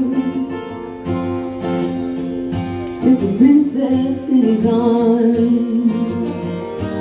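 A woman singing a slow ballad with long held notes over a strummed acoustic guitar. The voice slides up to a new note about three seconds in.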